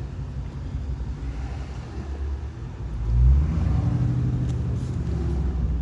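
Car engine running while driving, revving up and accelerating about three seconds in.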